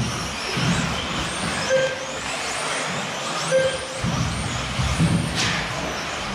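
1/10-scale electric 2WD off-road RC cars racing on an indoor astroturf track: high motor whines that rise and fall with the throttle, dull thumps as the cars land and hit, and a short beep twice.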